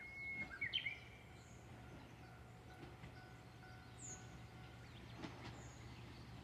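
Birds calling: a flat whistle followed by quick chirps in the first second, and a single high call about four seconds in, over a faint steady low hum.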